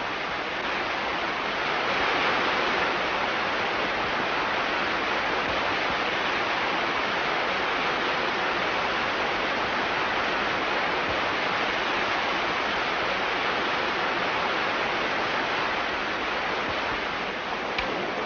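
Steady rushing of a river tumbling over rocks in a small waterfall: an even, unbroken hiss of water.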